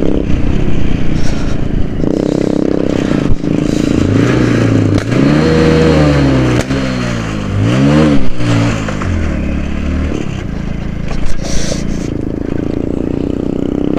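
100 cc motorcycle engine running on the move, its revs rising and falling a few times in the middle, like throttle blips through a bend.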